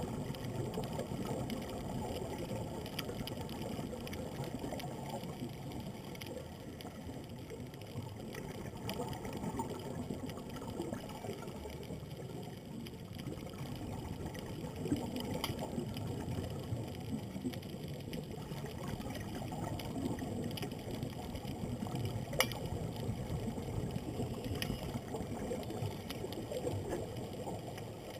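Muffled underwater sound heard through a waterproof camera housing: a steady low wash of water noise with a few faint clicks.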